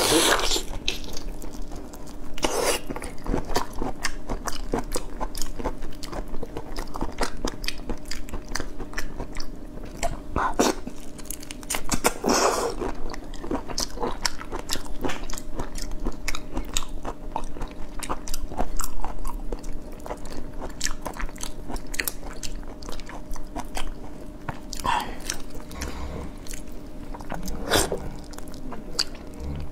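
Close-miked mouth sounds of eating whole shell-on prawns: many quick crunches and cracks as the shells are bitten, with wet chewing and a few longer sucking sounds.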